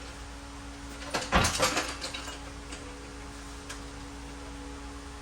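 A quick cluster of sharp knocks and clatters about a second in, over a steady low hum.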